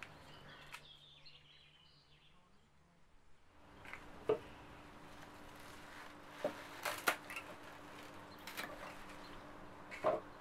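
Rose stems being trimmed and stripped of their leaves on a wooden table: a handful of sharp, short snips and snaps, scattered and irregular, starting a few seconds in after a quiet stretch.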